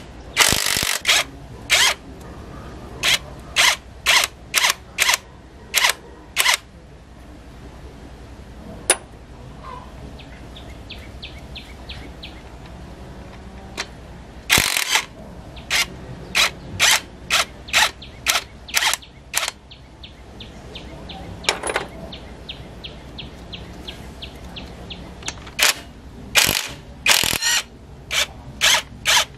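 Repair-work knocks: sharp strikes in runs of several, about one or two a second, with stretches of faint, fast ticking in between.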